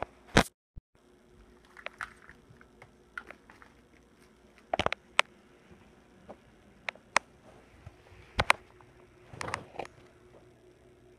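Kitten scuffling around a fabric floor pillow on carpet: scattered light taps, clicks and short rustles over a faint steady hum. A loud click about half a second in is followed by a brief dropout in the sound.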